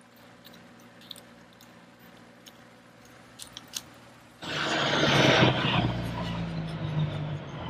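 Faint clicks and light knocks of plastic toy vehicles being handled, then, about four and a half seconds in, a loud truck engine sound starts suddenly and keeps running, with a falling whine over it.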